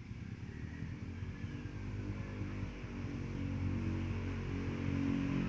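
A motor vehicle's engine running at a steady pitch, growing gradually louder.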